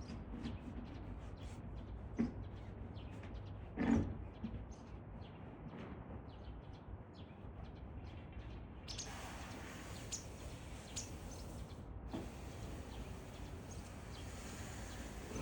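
Steady outdoor background noise with a low rumble, with short, faint bird chirps scattered through it and a single knock about four seconds in.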